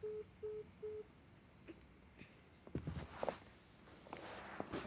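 Phone's call-ended tone: three short, evenly spaced beeps at one pitch as the call is hung up. A couple of seconds later come rustling and a few clicks.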